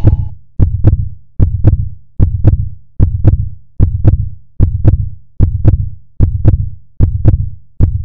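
Heartbeat sound effect: a steady lub-dub of paired deep thumps, each with a sharp click on top, repeating about every 0.8 seconds, roughly 75 beats a minute.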